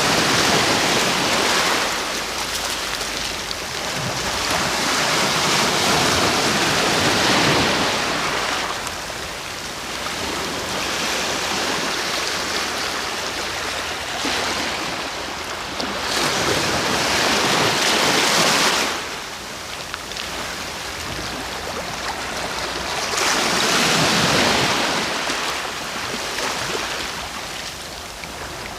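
Sea waves breaking on the shore, a continuous wash of surf with a louder surge every several seconds as each wave comes in.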